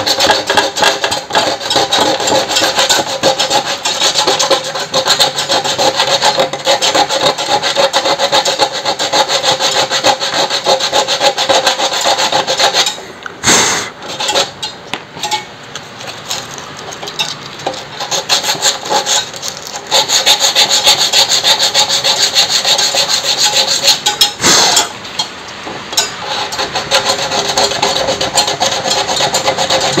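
Sandpaper rubbed by hand in fast back-and-forth strokes over the painted aluminium panel of a refrigerator freezer box, scouring off the paint around a puncture so the aluminium braze will take. The sanding is loud most of the time, easing off for several seconds around the middle and again near the end.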